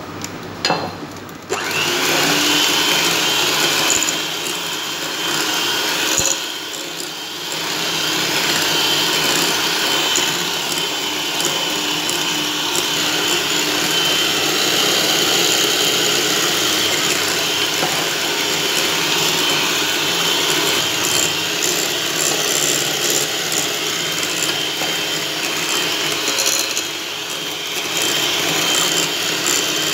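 Electric hand mixer switched on about a second and a half in, its twin wire beaters whirring steadily through creamed butter and sugar as eggs are beaten in, with a constant high whine from the motor.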